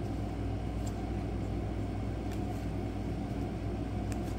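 Steady low background hum, with a few faint clicks of trading cards being flicked through by hand.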